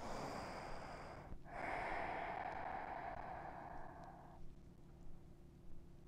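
A woman breathing out audibly as she rests after lowering out of a yoga back bend: a short breath, then a long exhale of about three seconds that stops about halfway through. Faint room tone follows.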